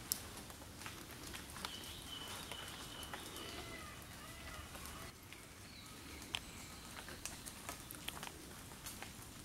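Faint forest birdsong: a held whistle and a few short looping notes in the first half, then another high whistle later, over scattered light ticks and patters.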